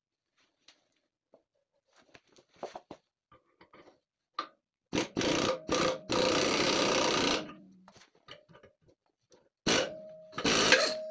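Pneumatic impact wrench run in two loud bursts on a seized, rust-broken exhaust flange bolt, a longer one about five seconds in and a shorter one near the end, after a few light clinks of hand tools on the metal.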